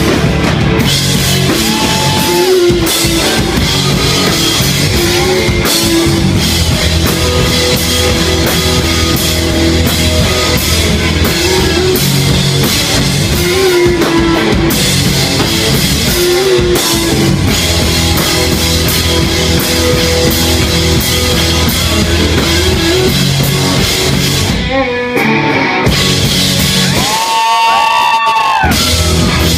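Rock music with a full drum kit and guitars, loud and dense, with a brief break and a pitch-gliding passage near the end.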